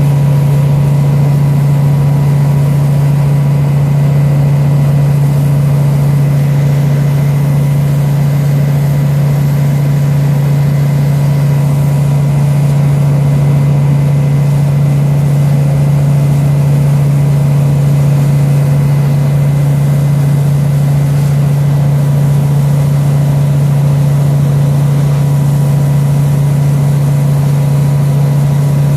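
Steady, loud, low mechanical hum that stays the same throughout, such as a running engine or motor.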